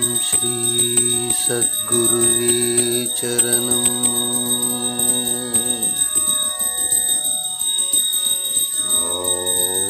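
Devotional aarti music with long held melodic notes over continuous bell ringing; the melody drops out for a few seconds past the middle, leaving the bells.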